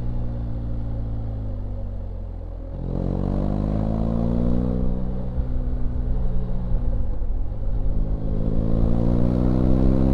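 BMW R1250GS Rallye's 1254 cc boxer twin under way. The revs fall for about three seconds, then the engine climbs under throttle. About seven seconds in the revs drop briefly at a gear change, then rise again.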